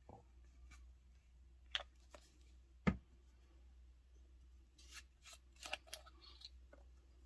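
Small clicks, taps and one sharper knock of craft supplies being handled on a table while coloured resin is mixed, with a cluster of clicks about five seconds in, over a low steady hum.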